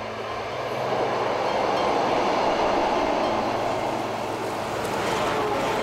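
Electric commuter train running past on the rails, a steady rushing noise that swells about a second in and holds.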